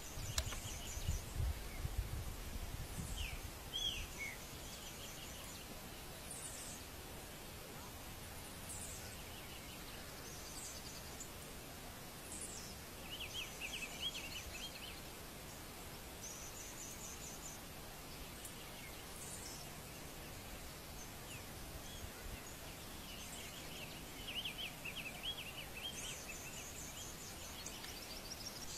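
Diademed tanager singing: phrases of quick high trills and short down-slurred whistles, repeated every few seconds over a steady background hiss. A low rumble sounds in the first few seconds.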